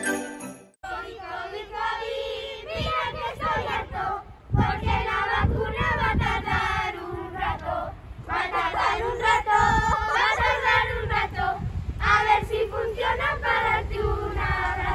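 A group of children singing a Christmas carol together in unison, starting about a second in after a short pause.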